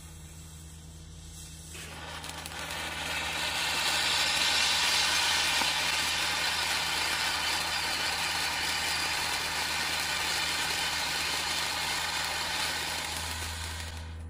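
Handheld 'Sword of Daylight' novelty firework fountain spraying sparks from its tip with a steady hiss. The hiss starts about two seconds in, builds over the next couple of seconds, holds, and dies away near the end.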